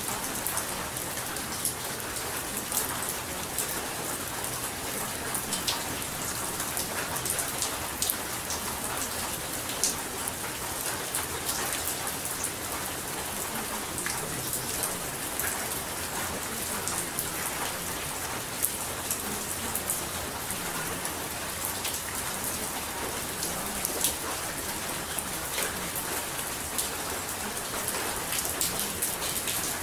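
Steady rain: an even hiss with many sharp drop ticks scattered through it.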